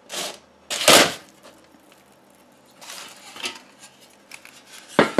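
Handling clatter of a perforated nonstick air-fryer basket against a foil-covered wire cooking rack as ground beef is tipped out of it: one loud sharp knock about a second in, softer rustles and knocks around three seconds, and a sharp click near the end.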